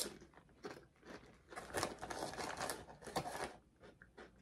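A series of soft, irregular crackling crunches: potato chips being chewed and the foil chip bag being handled.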